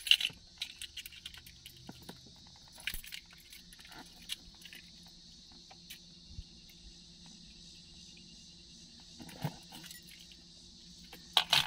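Small metallic clicks and key jingles from a key and a 1989 Buick Reatta glove box lock cylinder being worked by hand, in scattered bursts, over a steady high buzz of insects.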